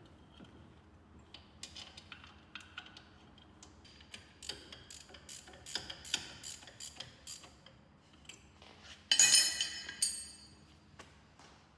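Hand tools and small metal parts clinking and rattling in quick, irregular clicks during hand work at a car's bare front wheel hub and brake caliper, with one much louder ringing metal clatter about nine seconds in.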